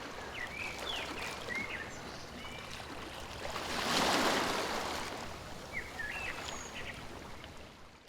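Stream water running steadily, swelling in the middle, with small birds chirping in short twittering phrases near the start and again near the end.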